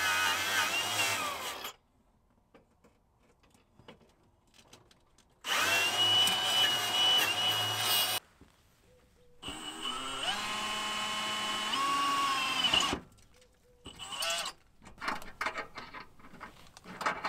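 Power tool fitted with a wire brush, grinding paint off the bus's steel frame in three runs of two to three seconds each, the motor spinning up at the start of each run.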